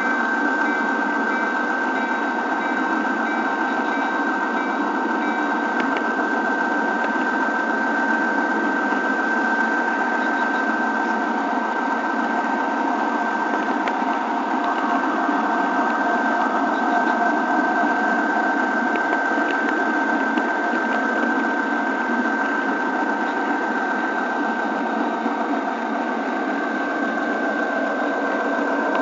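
Model train rolling along the track, heard from a camera car riding in the train: a steady mechanical hum with a high tone over the rushing noise of small wheels on the rails.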